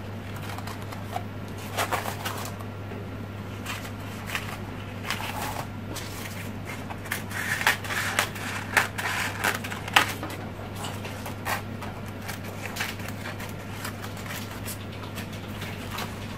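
Scissors snipping through crepe paper, with the paper crinkling and rustling as it is folded and handled; irregular snips and crackles, busiest around the middle.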